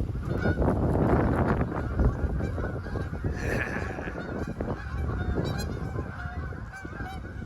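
A flock of geese honking repeatedly, over strong wind buffeting the microphone.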